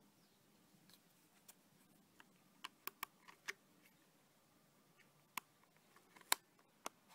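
Sharp plastic clicks from handling a Grundig Beat-Boy 100 cassette player as its battery compartment cover is fitted back on. A few quick clicks come around three seconds in, then three more near the end, the loudest just past six seconds.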